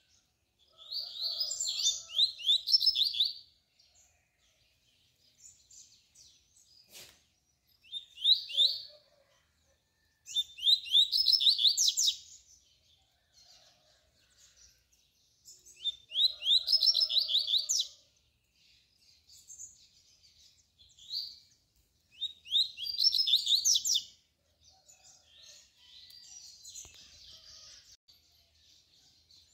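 Double-collared seedeater (coleiro) singing the tui-tui song: about six loud phrases of quick, high sweeping notes a few seconds apart, with softer twittering between them and near the end.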